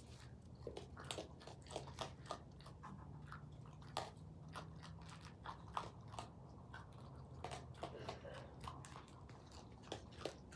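A raccoon chewing and crunching food, with sharp, irregular crunches a few times a second.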